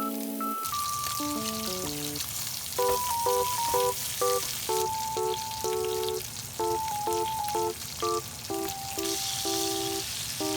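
Food sizzling and frying in a hot pan, starting about a second in, growing brighter near the end, under light background music with a melody of plucked-sounding notes.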